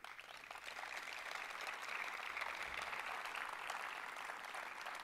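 Audience applauding: a dense patter of many hands clapping that builds up and eases off a little toward the end.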